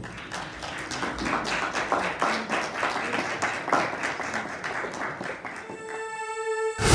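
People clapping: a quick, irregular run of claps that thins out near the end, where music with held notes comes in.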